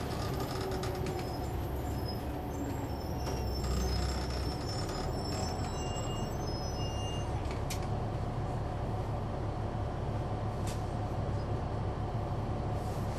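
A 2004 Neoplan AN459 articulated bus's Caterpillar C-9 diesel engine running, heard inside the cabin from the rear seats: a steady low rumble. Two short sharp clicks come about eight seconds in and again near eleven seconds.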